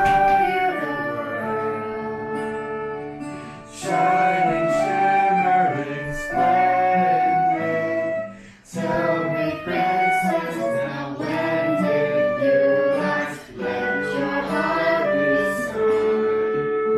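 A song: a voice singing a melody over instrumental accompaniment, in phrases with short breaks between them.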